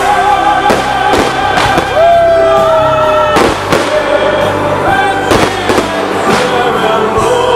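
A fireworks display set to music: several sharp bangs of aerial shells bursting over loud music, with one long held note about two seconds in.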